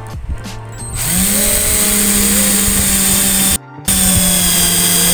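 Cordless drill spinning up about a second in and drilling a rivet hole into aluminium box section, its motor whining steadily. The sound drops out completely for a moment just past the middle, then the drilling carries on.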